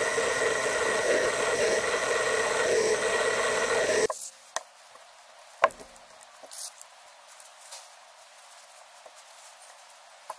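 A small milling machine running with a steady whine. It stops abruptly about four seconds in and gives way to faint handling noises: small metal reel parts being picked up and set down by gloved hands, with a few sharp clicks, the loudest shortly after the stop.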